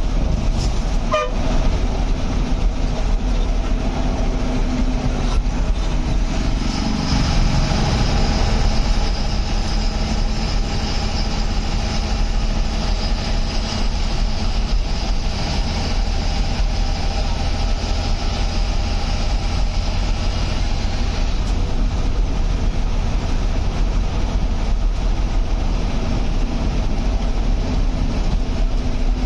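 Bus engine and road noise heard from inside the cab while the bus cruises down the highway, a steady low rumble, with a brief horn toot about a second in.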